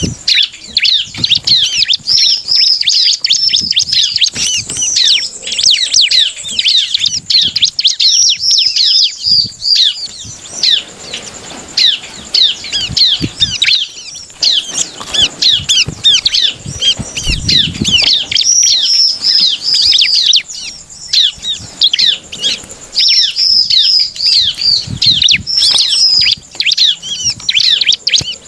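Bar-winged prinia (ciblek) singing a fast, unbroken chatter of rapid high-pitched notes, pausing only briefly now and then. There is a soft low thump a little past the middle, with some light fluttering as the bird hops about.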